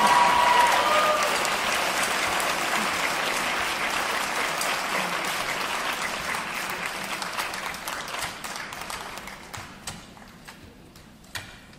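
Theatre audience applauding, loudest at first and dying away over about ten seconds to a few scattered claps.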